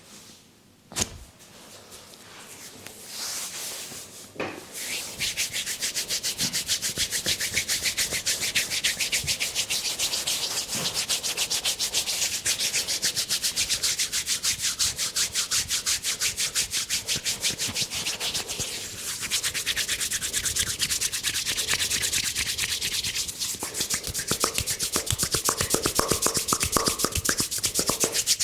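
A single sharp click about a second in, then hands rubbing fast and rhythmically over hair and skin during a head massage, many strokes a second, starting softly and becoming steady from about five seconds in.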